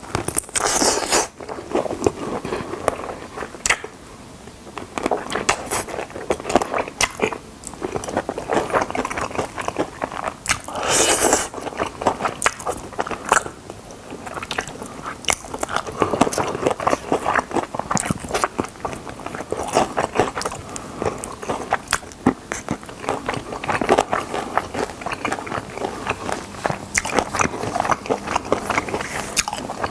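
Close-up eating sounds of chicken drumsticks being bitten and chewed: crisp crunches and wet, smacking chewing. A louder crunch comes about a second in and another around eleven seconds, with a steady run of smaller crackles and chews between.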